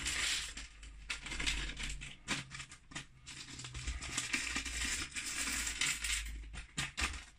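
Handling noise on a workbench: many small, sharp clicks and clatter of hard plastic parts, with stretches of rustling near the start and again from about four to six and a half seconds in, as calculator keycaps are picked up and the garbage is cleared away.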